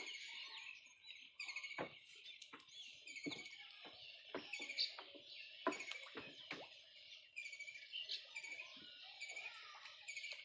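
Birds chirping continuously in quick repeated notes, with a handful of sudden knocks or splashes scattered through the middle.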